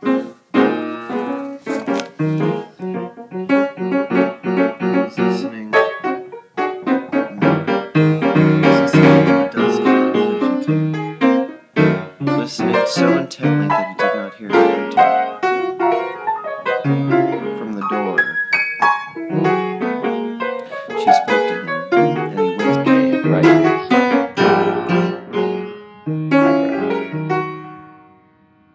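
Piano music, many notes played in quick succession, fading out near the end.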